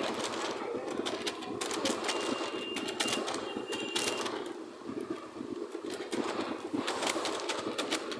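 Robot sound effect: fast mechanical clicking and rattling, with a thin high whine twice in the first half.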